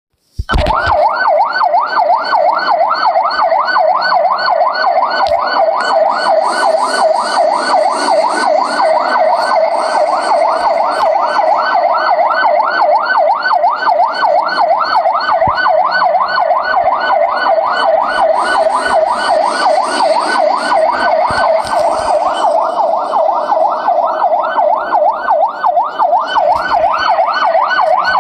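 Garda (Irish police) siren in a fast yelp, its pitch sweeping up and down about three times a second without a break. It starts about half a second in.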